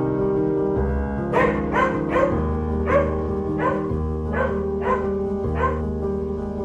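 A dog barking about eight times in quick succession, starting about a second and a half in, over steady background piano music.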